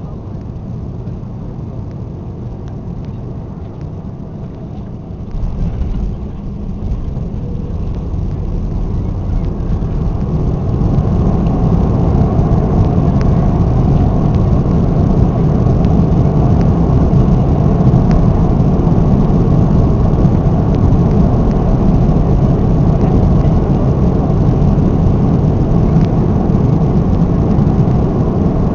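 Cabin noise of an Airbus A340-600 on its landing roll, heard from a window seat over the wing. A low rumble jumps up suddenly about five seconds in as the aircraft touches down. It then swells into a steady roar of the four Rolls-Royce Trent 500 engines and the wheels as the aircraft slows on the runway.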